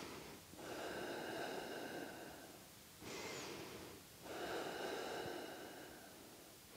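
A woman breathing slowly and deeply, close to a clip-on microphone: long, soft breaths in and out, about four in a row, each a second to two seconds long with short pauses between.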